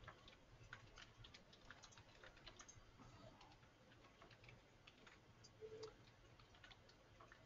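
Faint computer keyboard typing: quick, irregular key clicks.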